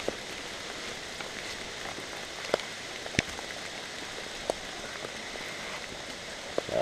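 Steady rain pattering, with a few sharp, louder taps scattered through it.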